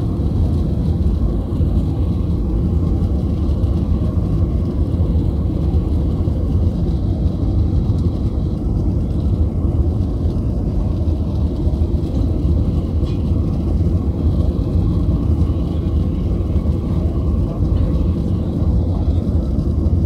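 Steady low cabin noise of a Ryanair Boeing 737's jet engines and airflow during the climb after takeoff, heard from inside the passenger cabin.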